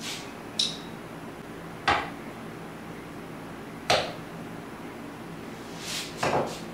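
A few sharp, brief metal clicks about two seconds apart as a hand-held aluminium plastisol injector is worked at an aluminium lure mold and pulled from its injection port, over a low steady background hum; near the end come softer clinks as the nozzle goes into a glass measuring cup.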